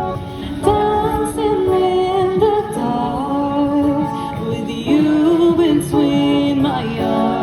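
Background song with a female voice singing a held, sliding melody over instrumental backing.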